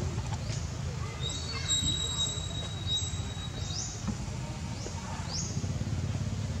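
Outdoor ambience: a steady low rumble under short, high, rising chirps that repeat every second or so. A thin high whistle is held for about two seconds near the start.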